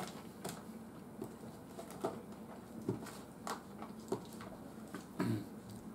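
A metal fork clicking and scraping in an aluminium foil takeaway tray as food is picked out of it, in short irregular ticks about once a second, with a soft low mouth sound about five seconds in.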